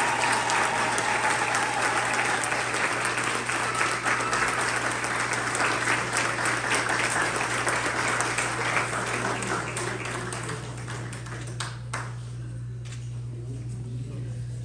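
A congregation applauding, a dense patter of many hands that fades away about ten to twelve seconds in, with a steady low hum underneath.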